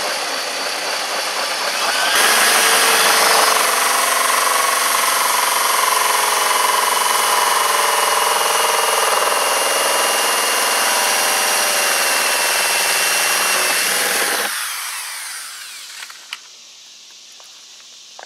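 Power drill spinning a 3.5-inch hole saw through a plastic boat deck, with a steady whine that gets louder about two seconds in as the saw bites. Near the end the motor winds down and stops once the hole is cut through.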